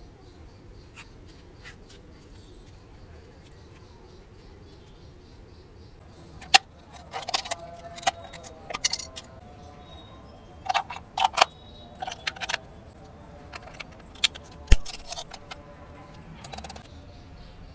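Irregular clicking and clattering of small hard objects, starting about six seconds in, over a low steady background.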